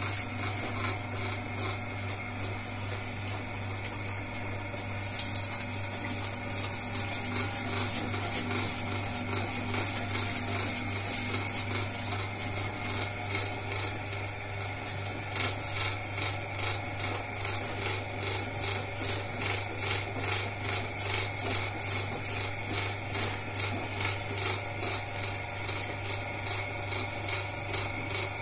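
Motorized potter's wheel humming steadily as wet clay is thrown on it. From about halfway a regular pulsing, about twice a second, joins in as the spinning clay works under the potter's hands.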